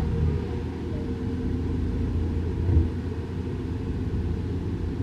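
Low, steady rumble of a heavy diesel vehicle engine running, with one brief louder bump a little under three seconds in.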